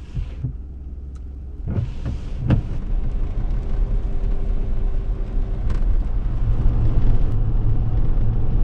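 A steady low vehicle rumble that grows louder about two seconds in, with a few sharp clicks near the start.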